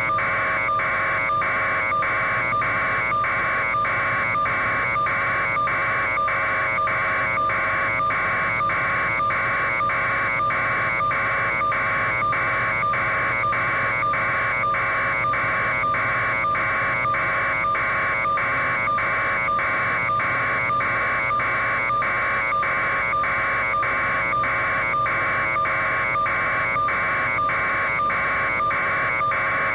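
An electronic buzzing tone that pulses on and off evenly, about one and a half times a second, over a steady hum, with no change in level.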